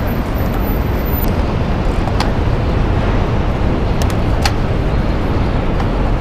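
Steady wind and road noise while riding a bicycle along a road with traffic, with a few brief clicks; no horn sounds.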